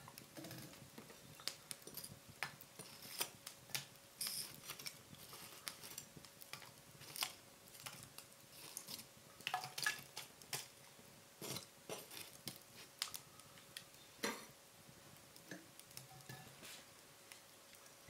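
Irregular light clicks and clinks of metal fire tongs picking up glowing charcoal embers and dropping them into a small clay charcoal stove, with a wire grill net set on top.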